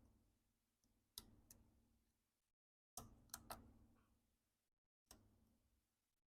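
Near silence broken by faint, sharp clicks and taps from hand work inside an opened MacBook Pro: one about a second in, three close together around three seconds in, and one more after five seconds.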